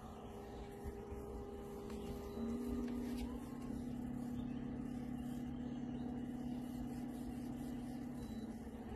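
Boat motor running with a steady low hum that steps up in pitch and loudness about two and a half seconds in and drops back near the end.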